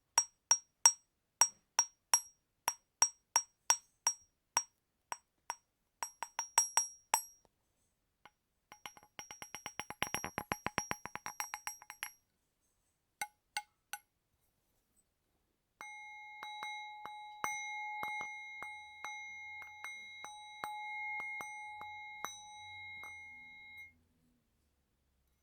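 Small metal bells struck in a series of separate takes. First come sharp ringing clinks about twice a second. Then a fast rattling run of strikes, a few single strikes, and last a bell tone with a steady ring, struck again several times, which cuts off near the end.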